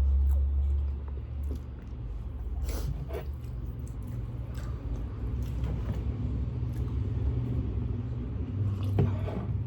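Close-miked eating: chewing and biting with a few soft clicks, over a steady low rumble that is loudest in the first second.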